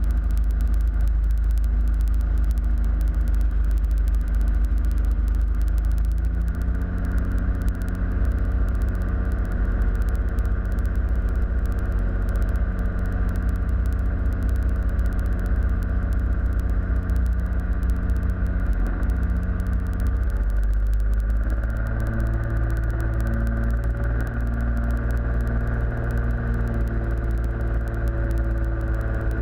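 Cozy Mk4's pusher engine and propeller droning steadily, heard inside the cockpit. The pitch steps up about six seconds in and changes again about twenty-one seconds in.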